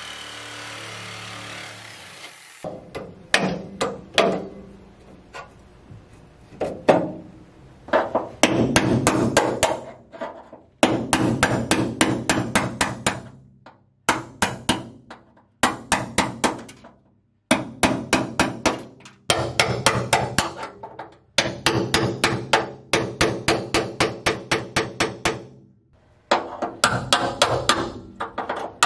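Hammer blows on the sheet-steel floorpan flange of a Miata, in quick runs of about five strikes a second with short pauses between runs. The first couple of seconds hold a steady noise before the hammering starts.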